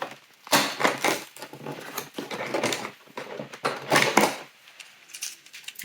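Hands opening a cardboard advent calendar door and unwrapping a small plastic toy: a run of clicks, scrapes and packaging rustles in three busy stretches, dying down about four and a half seconds in.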